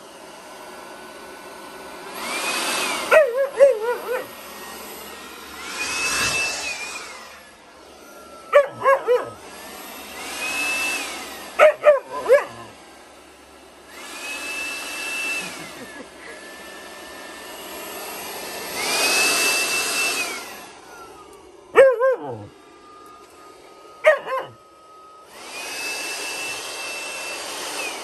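Handheld leaf blower switched on and off in about six bursts of a few seconds each, its motor whine rising as it spins up and falling as it runs down. An Alaskan Malamute puppy barks in short volleys between and during the bursts.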